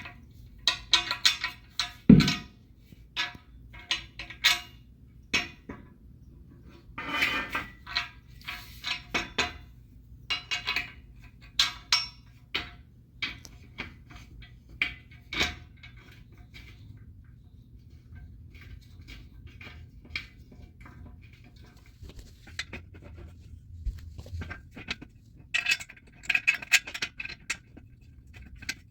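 Steel bed-frame parts, bolts and Allen wrench clinking and clanking irregularly while the frame is put together by hand, with one heavier clank about two seconds in.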